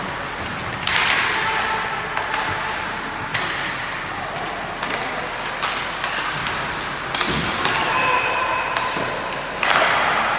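Sharp knocks from an ice hockey game, the puck and sticks striking the boards, each ringing out in the large rink. There are about four loud ones, the loudest near the end.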